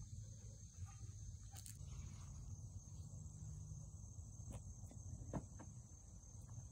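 Faint steady high-pitched insect buzzing over a low rumble, with a couple of soft taps a little past halfway.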